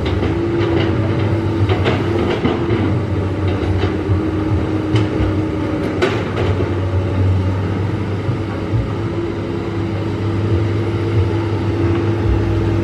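Excavator's diesel engine running steadily, with scattered knocks and clanks from the machine at work, several in the first few seconds and two more about five and six seconds in.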